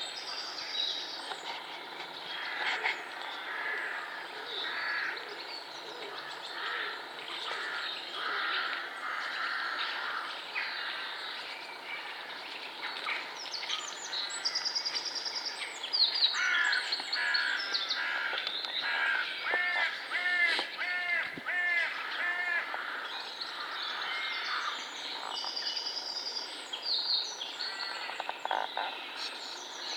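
Wild birds calling and singing together, with several songbirds overlapping. A run of about six short, evenly repeated calls comes roughly two-thirds of the way through.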